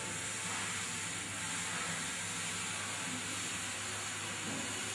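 A steady, even hiss that stops near the end.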